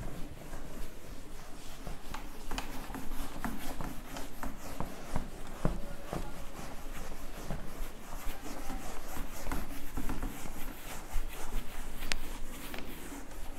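Whiteboard being wiped clean with a hand-held duster: repeated, irregular rubbing strokes across the board, with small knocks here and there.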